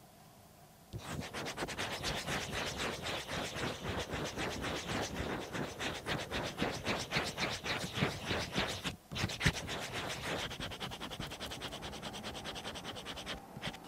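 A green coloured pencil scratching on drawing paper on an easel in quick back-and-forth strokes. It starts about a second in and breaks off briefly about nine seconds in.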